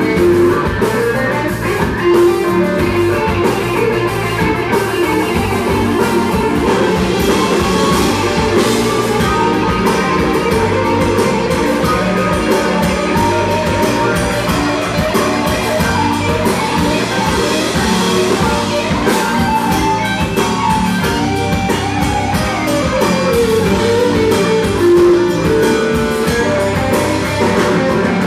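Live rock band playing loudly through amplifiers, with an electric guitar leading over a drum kit.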